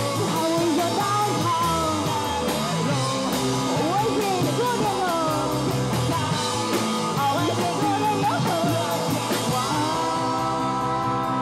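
Live rock band playing: drums with a steady run of cymbal hits under a lead line that bends up and down in pitch, settling into a held, sustained chord about ten seconds in.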